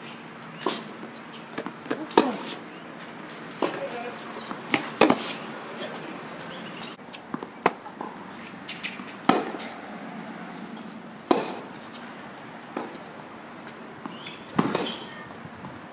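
Tennis rally on a hard court: a ball struck by racquets and bouncing, heard as sharp pops every second or two, some louder than others.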